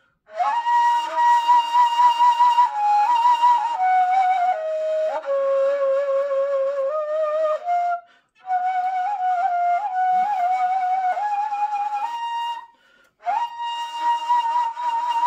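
Ney, the Turkish end-blown reed flute, playing a slow improvised taksim in makam segâh: a single breathy melodic line of long held notes moving in small steps. The line breaks off briefly about eight seconds in and again near the end.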